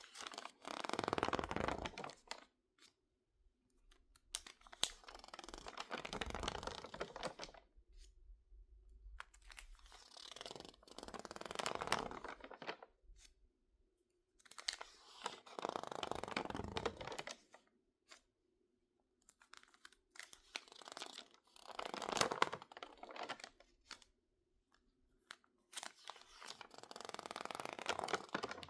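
Stiff, water-crinkled magazine pages crackling and rustling as they are handled, turned and squeezed by hand, in about six separate passes of a few seconds each with short quiet pauses between.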